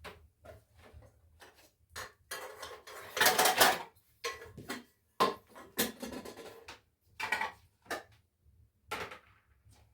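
Dishes, pots and pans clattering as they are handled and set down: a series of clinks and knocks, the loudest, longest clatter about three seconds in.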